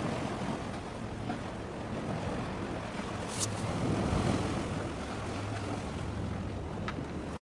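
Wind buffeting the microphone over choppy harbour water: a steady blustery rumble with sea wash, and a couple of brief ticks partway through.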